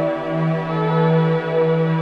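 Slow ambient background music: a sustained chord of long held notes over a steady low note.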